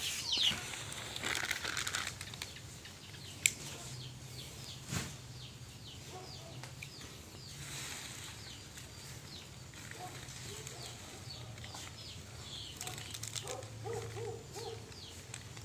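Chickens: a brief flurry of wing-flapping at the start, then repeated high, falling peeps, with a few low clucks near the end. A single sharp knock about three and a half seconds in is the loudest sound.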